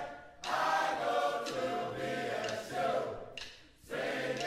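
Choir singing held chords in sustained phrases, breaking off briefly twice.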